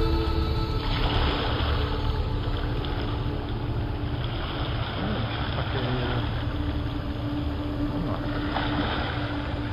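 Wind rumbling on the microphone over open, choppy river water, with the steady low hum of a distant cargo barge's engine.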